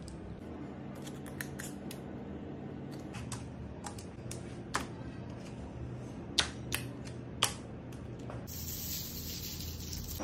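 Light clicks and taps of food and wooden skewers being set on an aluminium baking tray, a few sharper ones in the middle, over a steady low kitchen hum. A hiss comes in near the end.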